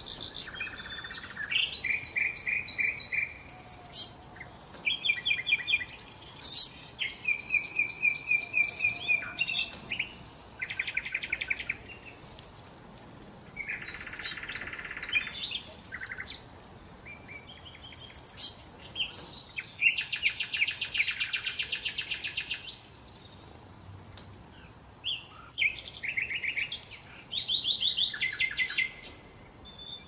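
Sparrows chirping and chattering in short phrases of quick, repeated notes and trills, with brief pauses between them.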